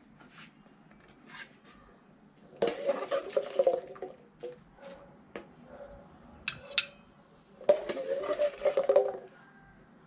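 A metal slotted spoon scraping and clattering against the inside of an aluminium cooking pot as boiled jackfruit seeds are scooped out. It comes in two rattling spells with the pot ringing, and a few single clinks between them.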